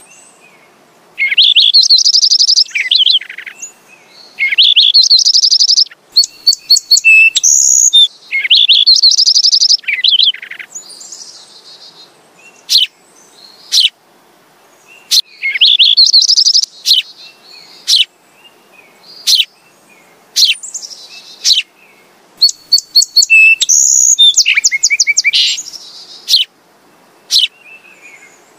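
Sparrow singing: loud, high phrases of rapid trills and chirps come every couple of seconds. In the middle, single sharp chip notes come about once a second between fewer phrases, and one more trilled phrase comes near the end.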